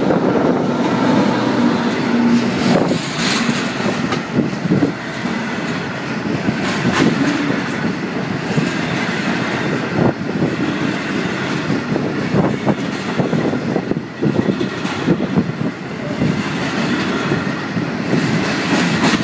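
A diesel-hauled freight train, led by an EWS Class 66 locomotive, passing at close range. The locomotive goes by first, then a long rake of wagons rolls past with a loud, continuous clatter of wheels over the rails.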